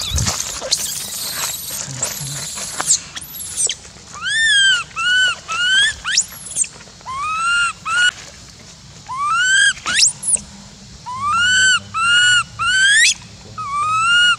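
Baby long-tailed macaque crying: high-pitched arched screams, mostly in runs of three, starting about four seconds in, with a few quick rising squeals between them.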